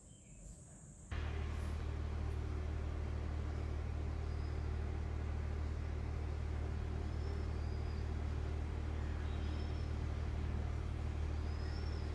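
A steady low hum that starts abruptly about a second in, with a few faint short high chirps now and then.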